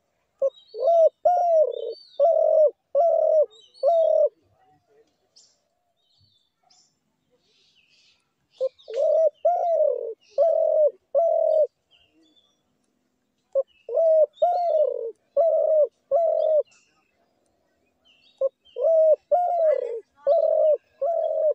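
Dove cooing in four repeated phrases, each a run of five or six short, slightly falling coos, with a pause of a few seconds between phrases. Faint chirps of small birds sound in the background.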